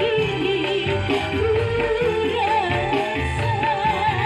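A woman singing with vibrato into a microphone over an electronic keyboard backing with a pulsing bass beat, amplified through a PA system.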